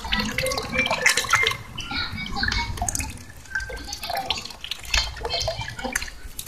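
Jet of water from a small submersible fountain pump running at maximum discharge, splashing back into a basin of water in a steady stream of small irregular splashes.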